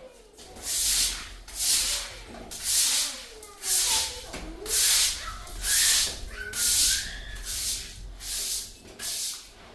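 Rhythmic rubbing or scraping strokes, about one a second, each a short hissing swish.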